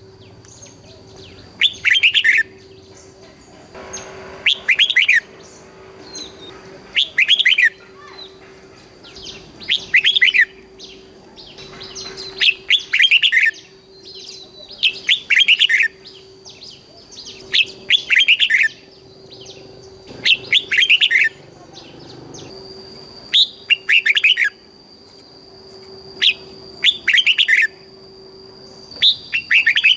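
Red-whiskered bulbul singing, repeating a short, quick warbled phrase every two to three seconds, with a faint steady whine and hum underneath.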